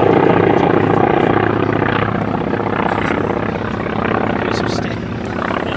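Radial-engined WWII naval fighter flying past, its piston engine and propeller running steadily and slowly fading.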